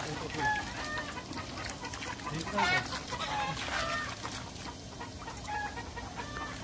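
Water splashing as a fine-mesh seine net is dragged through shallow pond water, with short pitched bird calls recurring over it, one louder call about two and a half seconds in.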